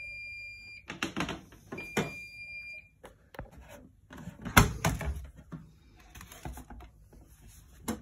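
Bosch heat pump dryer beeping twice, two long steady high beeps, its end-of-programme signal. About four and a half seconds in, the dryer door is pulled open with a sharp thump, followed by soft handling of the dried towels.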